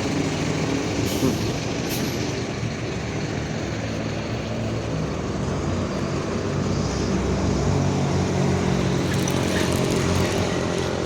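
Mercedes-Benz OF-1721 Bluetec 5 city bus running steadily, a bus whose differential is described as growling. Short hisses from the air brakes come about a second in, again at two seconds, and near the end.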